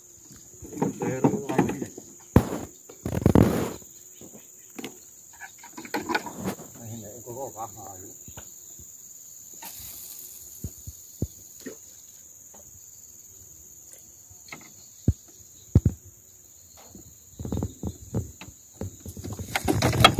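Insects, crickets or similar, chirring in a steady high drone, with scattered knocks and clicks and a few brief, indistinct voices in the first few seconds.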